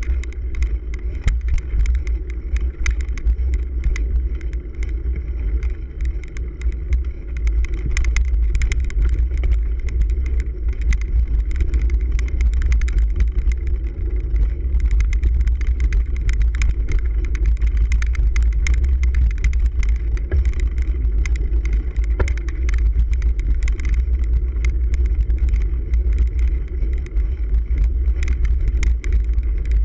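Ride noise from a cyclocross bike on a bumpy grass, leaf and dirt course, heard through a handlebar-mounted camera. A continuous low rumble of wind and vibration on the microphone sits under frequent rattles and clicks as the bike jolts over the ground.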